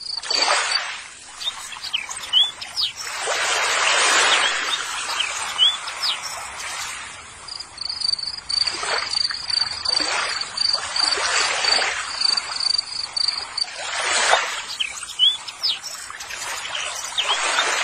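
Water splashing and sloshing in a plastic tub as hands scrub toys with a brush, in uneven surges. A steady high insect trill sounds at the start and again through the middle, with short bird chirps now and then.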